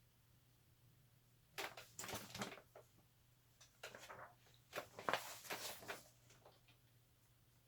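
A picture book's paper pages being turned and handled: a few short rustles and soft knocks, about two, four and five seconds in.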